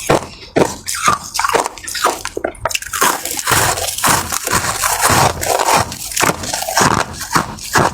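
Ice being bitten and chewed close to the microphone: a dense run of crunches and crackles.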